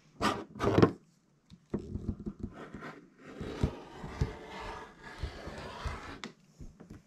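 Rustling and scraping of fabric and quilt batting being handled, with scattered clicks and knocks. Two short loud rustles come in the first second, then steadier handling noise runs until it stops abruptly about six seconds in.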